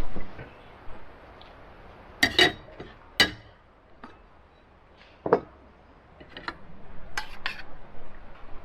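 Kitchen utensils clinking and knocking against dishes and pans: a few separate sharp clinks, the loudest pair about two seconds in and another a little past five seconds.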